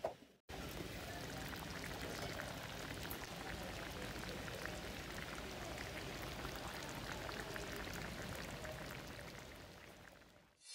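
Pot of squash and string beans in coconut milk simmering on a gas stove: a faint, steady bubbling and crackle that fades out near the end.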